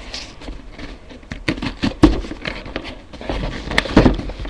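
A parcel's packaging being handled and pulled open: a string of irregular clicks, knocks and rustles, with sharper knocks about two seconds in and near the end.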